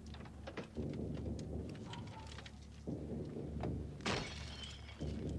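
Film soundtrack of a station wagon being broken into and hot-wired: small clicks and knocks of glass and metal over a low steady hum, with a louder rushing burst about four seconds in.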